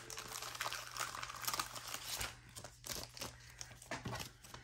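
A baseball trading card being handled and slipped into a plastic card sleeve: soft, irregular crinkling and scraping of thin plastic and card stock.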